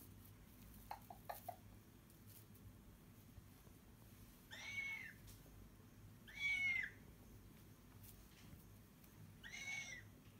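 Young cockatoo giving three short, harsh calls a couple of seconds apart, each rising and then falling in pitch, the middle one loudest. A few light clicks sound about a second in.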